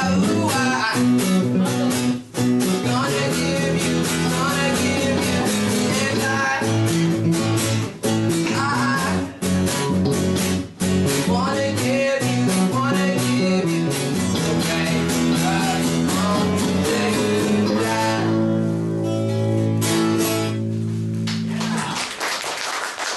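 Acoustic guitar and electric bass playing a song live, with a sung vocal. The song ends on a held final chord that rings for about three seconds and is stopped about 21 seconds in. Clapping begins right at the end.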